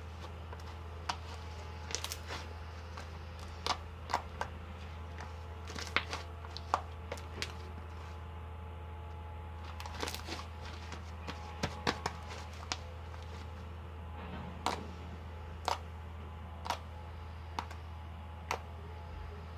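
Slime made with shaving foam and pearl powder being squeezed and poked by hand, giving irregular sharp clicks and pops, about a dozen in all, over a steady low hum.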